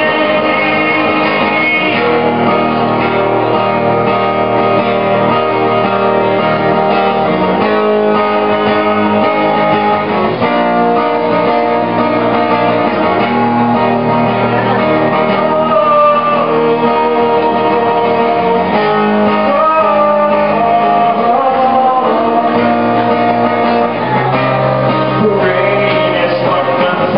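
A man singing a song while playing guitar, performed live as a solo act.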